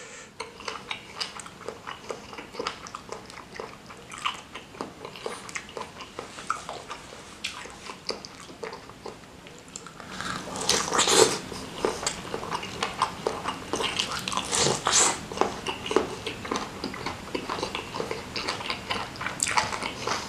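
Close-up mouth sounds of a person biting and chewing a beef tendon meatball (bakso urat): many short wet clicks, louder and denser from about halfway.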